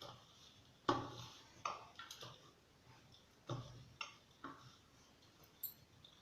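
Hands kneading a stiff wheat-flour dough in a bowl: irregular soft knocks and slaps as the dough is pressed and turned, the loudest about a second in.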